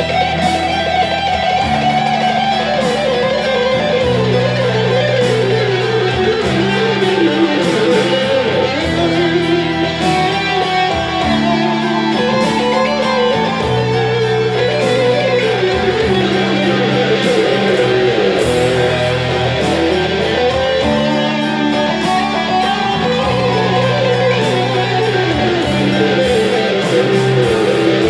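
Custom-built electric guitar playing an improvised lead solo in E minor: a busy melodic line with pitch bends and vibrato, over a low accompaniment that changes chord every couple of seconds in a repeating cycle.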